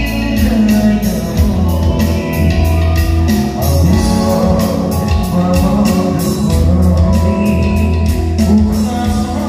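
Live band playing an Assamese pop song: a male singer over electric guitars, keyboard and drums with a steady beat, through a stage sound system.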